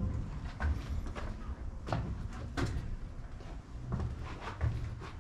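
Footsteps knocking on the wooden floor inside an old steel railroad car, a sharp knock about every two-thirds of a second over a low rumble.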